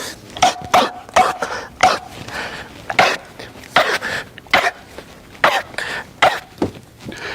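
A person letting out a rapid string of loud, forced sneezes and coughs, about a dozen short, sharp bursts in irregular succession.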